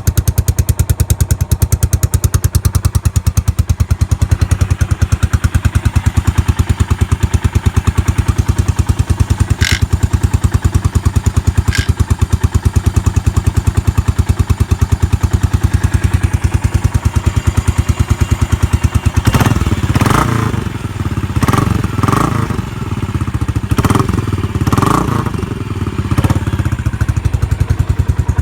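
Yamaha SR400's air-cooled single-cylinder four-stroke engine idling with an even, fast pulse. From about two-thirds in, the throttle is blipped several times, the engine revving up and dropping back. It picks up cleanly, with no abnormal noise.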